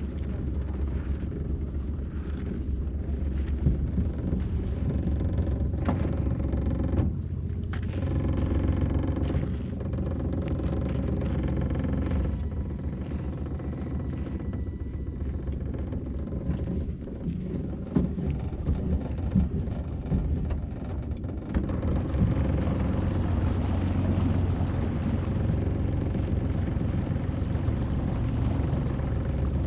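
Small outboard motor running steadily at low throttle, pushing the boat along, with a few short knocks against the hull.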